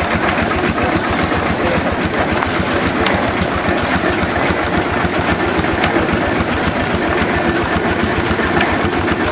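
Antique stationary engines running steadily, with a rapid, even beat and the clatter of their moving parts.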